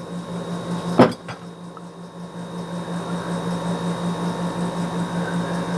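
A single sharp knock about a second in, followed by a fainter one, over a steady low hum.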